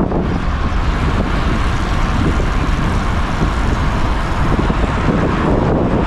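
Wind buffeting the microphone of a camera on a road bike moving at speed, a steady loud rush with road rumble underneath.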